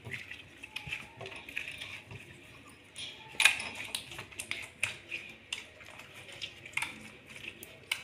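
Slime being squished and stretched by hand, giving irregular wet clicks and small pops, with one sharper pop about three and a half seconds in.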